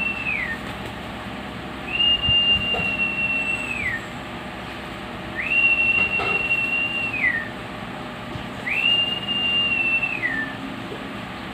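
A clear, high whistle held steady for about two seconds and then dropping in pitch at the end, repeated three times, with the falling tail of one more just at the start.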